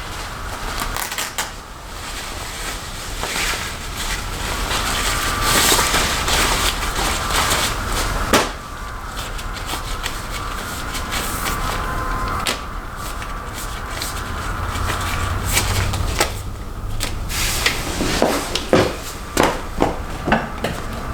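Rustling and handling noises with scattered light knocks, ending in a quick run of sharp clicks.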